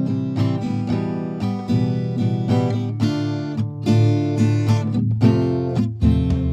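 Background music: acoustic guitar playing a quick run of plucked notes and strums.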